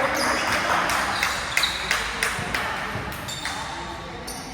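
Indoor volleyball play: several sharp knocks of the ball in the first two and a half seconds, with short high squeaks of shoes on the court.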